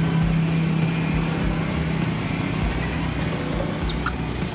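A motor engine's steady hum, which fades away about a second and a half in, over a low rumble.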